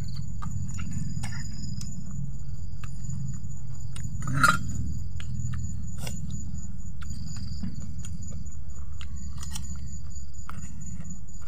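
Insects chirping, in a steady high trill with short repeated bursts, over a steady low hum. Small clicks and one brief louder knock about four and a half seconds in come from people eating by hand at a table.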